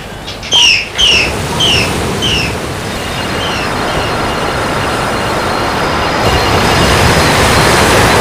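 A steady rushing noise that swells and grows louder, with a run of short falling chirps, about two a second, that fade out in the first few seconds.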